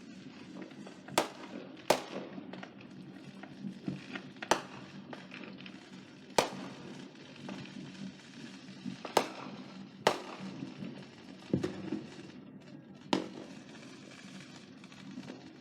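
Consumer fireworks and firecrackers going off around a neighbourhood: about seven sharp, loud bangs at irregular intervals, with many fainter distant pops and crackles between them.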